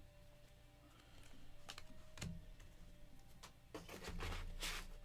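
Trading cards being handled: a few faint clicks, then a longer scratchy slide of cards near the end.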